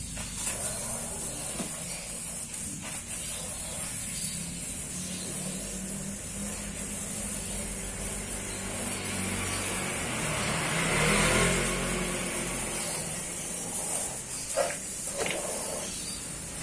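A motor vehicle's engine running nearby, swelling louder and then fading about ten to twelve seconds in, as if passing, over a steady hiss.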